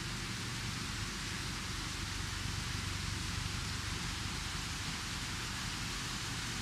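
Steady hiss with a low rumble beneath it, even throughout with no distinct events.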